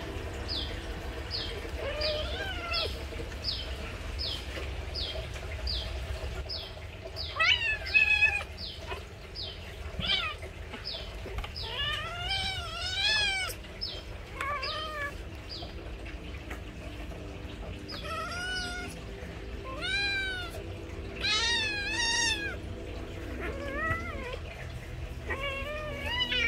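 Kittens meowing repeatedly: about ten short high-pitched calls that rise and fall in pitch, some in quick runs of two or three, the loudest about eight seconds in. Under the first half, a faint high chirp repeats about twice a second.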